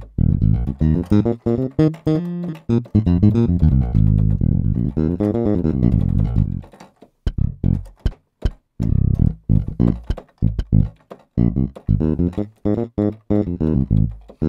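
Scarbee Jay-Bass, a sampled finger-played electric bass library, played from a keyboard as key bass: a bass line of plucked notes, flowing and held for the first half, then short, choppy notes with brief gaps between them.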